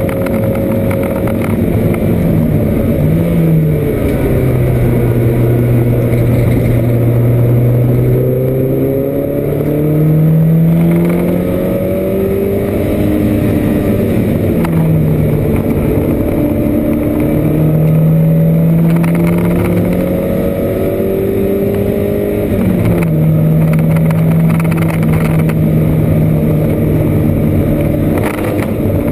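Porsche 924's four-cylinder engine heard from inside the cockpit at racing speed. Its note climbs and drops several times through the gears as the car accelerates and slows through corners, over steady road and wind noise.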